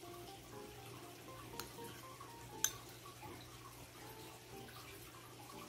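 Metal spoon clinking twice against a ceramic bowl while scooping food, about a second apart, the second louder, over a faint steady background.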